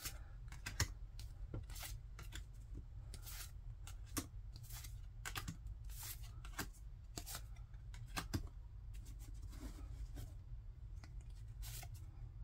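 Pokémon trading cards being flicked through one by one, each card sliding off the stack with a short brushing snap, about one or two a second with a brief pause near the end. A low steady hum runs underneath.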